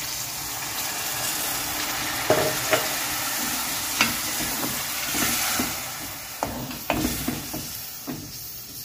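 Water poured into a hot pan of fried peas and onion-tomato masala sizzles while a metal ladle stirs, scraping and knocking against the metal pan now and then. The sizzle eases off in the second half.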